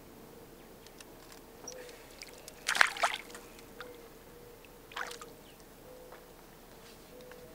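A hooked fish splashing at the water's surface beside the boat as it is reeled in: a loud splash about three seconds in and a smaller one about two seconds later as it is lifted out, over a faint steady hum.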